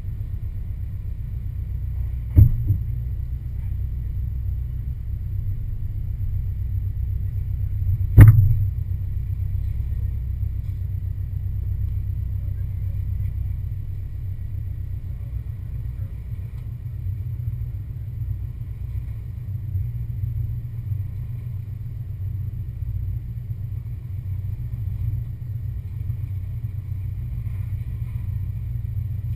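Lifted Ford Explorer's engine running in a steady low rumble as it crawls slowly over rocks. Two sharp knocks come through, about two and eight seconds in, and the second is the loudest sound.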